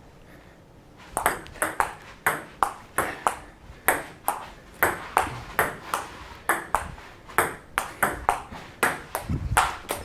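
Table tennis rally: a celluloid ball clicking off the table and the paddles in quick alternation, about two to three hits a second. It starts about a second in and stops just before the end, as the point ends.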